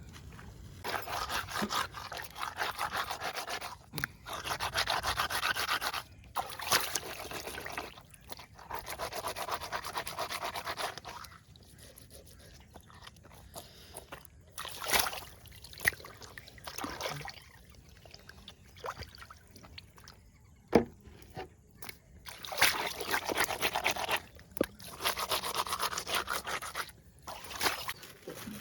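Bursts of rapid scraping strokes, each run lasting two to three seconds with pauses between, and a few sharp knocks in the quieter stretches.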